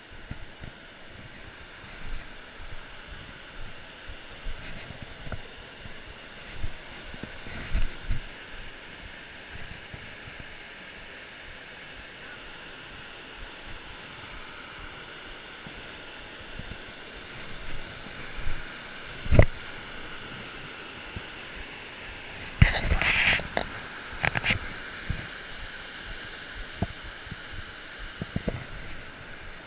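Steady rushing of a small waterfall and mountain stream. A few sharp knocks and bumps break in, one about two-thirds of the way in and a louder cluster a few seconds later.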